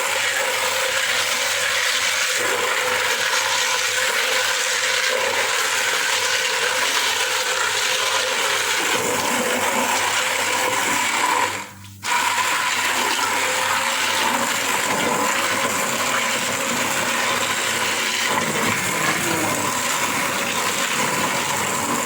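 Moulinex electric blender running steadily as it purées grapes with sugar and water. It cuts out briefly about halfway through, then starts again.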